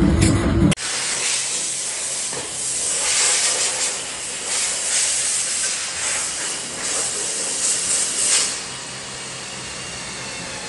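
A loud low drone from a bread-slicing machine cuts off under a second in. It gives way to a steady hiss of air from a conveyor packaging machine, which swells in several surges in the middle and then settles.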